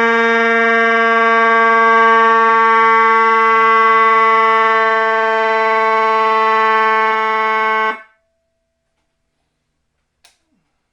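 Whelen electronic siren sounding its simulated mechanical-siren tone, held at one steady pitch, then cutting off abruptly about eight seconds in. A faint click comes near the end.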